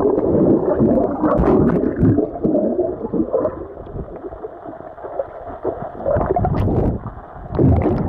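Muffled underwater gurgling and bubbling of pool water, heard with the microphone submerged, with scattered small knocks and a louder surge of churning water near the end.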